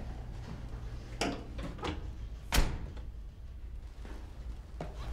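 A few heavy thuds, then one sharp bang, the loudest, about halfway through.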